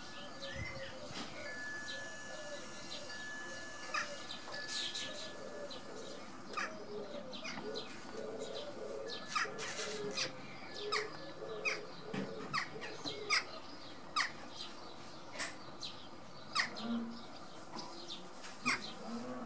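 Small birds chirping in short, sharp notes that come more often in the second half, over a lower wavering warble.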